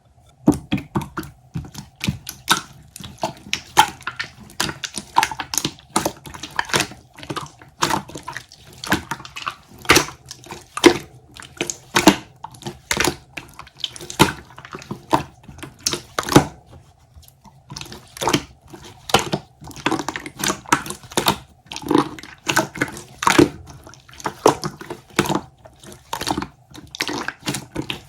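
Clear slime being squeezed and pressed by hand, giving a steady run of sharp pops and clicks, about two or three a second, with a short pause about two-thirds of the way through.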